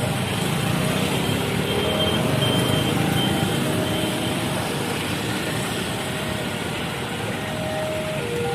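Railway level-crossing warning alarm sounding a repeating sequence of short tones that step between several pitches, over steady road traffic engine noise.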